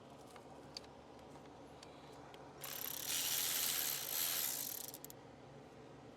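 A ratchet tool clicking rapidly for about two seconds as it runs in a water-outlet bolt, after a few light taps of metal tools.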